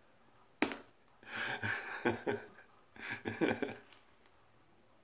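A cream pie hits a face with one sharp splat about half a second in. Two muffled bursts of laughter and breathing through the cream follow.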